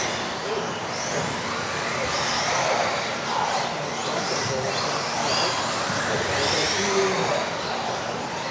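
Motors of several electric RC off-road cars racing together, a shifting high whine whose pitch rises and falls over and over as the cars accelerate and brake.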